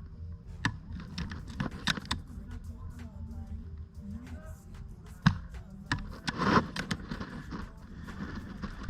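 Airsoft guns firing during a game: scattered single sharp pops and clicks, irregularly spaced, the loudest about five seconds in, with a short rustling burst a little later.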